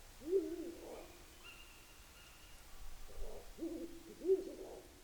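Wild owls hooting: two low, wavering hoot phrases, one at the start and one about three and a half seconds in, with a faint thin higher tone between them.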